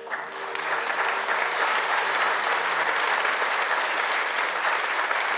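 Theatre audience clapping for a song just ended, building over the first second and then holding steady, with the last notes of the backing track fading out beneath it.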